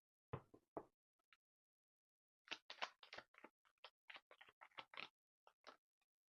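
Tarot cards being shuffled and handled: a faint run of quick soft clicks and flicks, starting about two and a half seconds in after a few isolated ticks.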